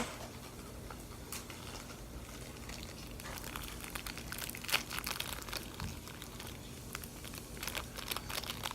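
Plastic packaging crinkling in the hands as someone tries to shake out little slime balls that are stuck together. The crackles are faint and sparse at first and come more often after about three seconds.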